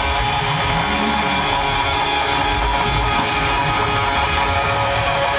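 Live band music played loud, an electric guitar to the fore over a low pulsing bass.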